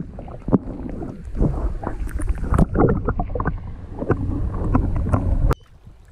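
Lake water sloshing and splashing around a hooked lake trout being fought beside a canoe, over a low rumble, with many irregular knocks. The sound drops away suddenly about five and a half seconds in.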